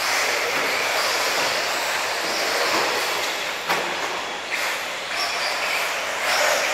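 Tekno EB48 1/8-scale electric RC buggies racing on a dirt track: a steady whine and hiss of motors, drivetrains and tyres, rising and falling as the cars pass. A single sharp knock about three and a half seconds in.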